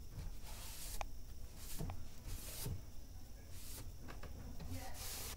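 A cloth rag rubbing across bare pine boards in about five short, hissy wiping strokes, over a low steady rumble.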